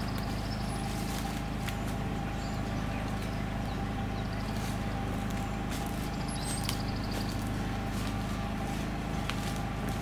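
Engine running steadily at constant speed, a low hum with a steady higher tone, with a few light clicks and knocks scattered through.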